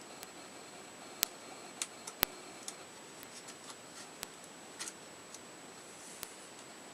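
Scattered small sharp clicks and light taps of hands and tools working the plastic casing and parts of a Nook Simple Touch e-reader during disassembly, a few of them bunched together about two seconds in. A faint steady high-pitched tone runs underneath.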